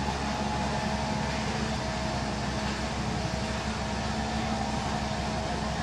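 A steady mechanical hum with an even hiss, holding level and unchanging throughout.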